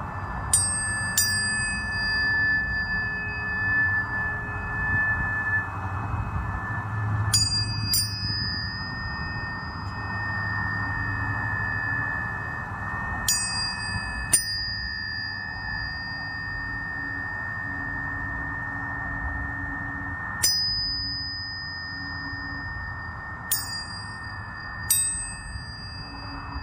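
Planetary tuning forks struck again and again, mostly in quick pairs every few seconds. Each strike is a bright clink followed by a high ringing tone that fades, over a steady tone from forks still ringing.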